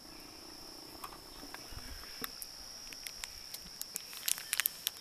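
Crickets chirping in a steady, high-pitched chorus. Scattered sharp clicks sound over it, with a quick cluster of them near the end.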